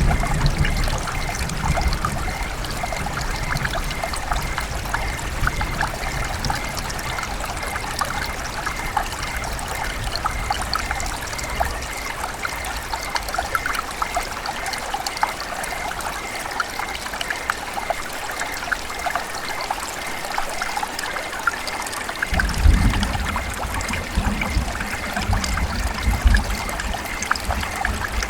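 River water running and trickling steadily, with many small gurgles and splashes. A low rumble under it drops away about twelve seconds in and comes back about twenty-two seconds in.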